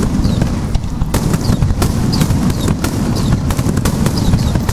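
Aerial firework shells bursting in rapid succession, a dense barrage of bangs and crackles over a continuous low rumble.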